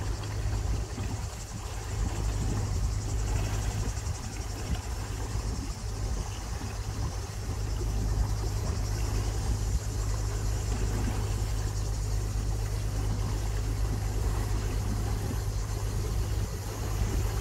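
A canal motor cruiser's engine running steadily underway, a constant low hum with an even hiss above it.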